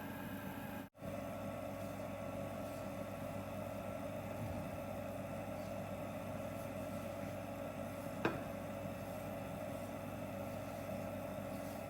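Steady motor hum of a kitchen appliance, dropping out for an instant about a second in, with a single sharp click about eight seconds in.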